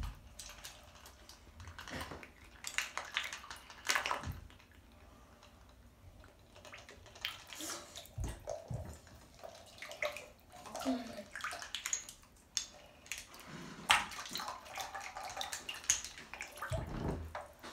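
Bathwater sloshing and splashing in a tub as a child moves and dips a toy boat, with scattered light knocks at irregular moments.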